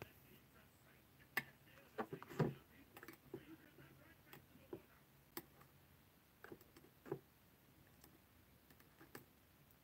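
Faint, irregular small clicks and taps of metal tweezers handling cotton wick in the coils of a rebuildable vape atomizer.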